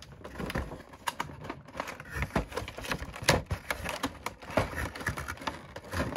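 Cardboard and clear plastic packaging of an action-figure box being handled and opened: irregular crinkling, rustling and sharp clicks.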